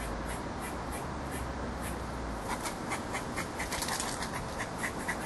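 Squirrel giving a rapid series of short, quack-like alarm barks, about three a second, getting louder from about halfway through.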